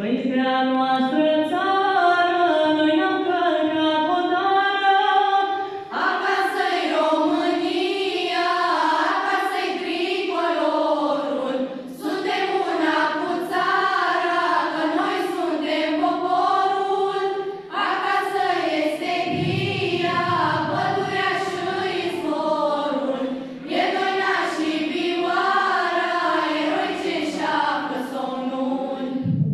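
Girls' and children's choir singing a cappella, in long sung phrases with brief pauses about every six seconds.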